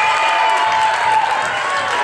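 Spectators' cheering and shouting, many voices at once, with clapping; one voice holds a long shout through the first second.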